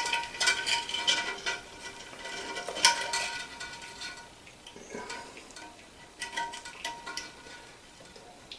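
Plastic toilet-tank parts being handled and pulled out, a run of small clicks, clinks and knocks with a faint ringing after some of them.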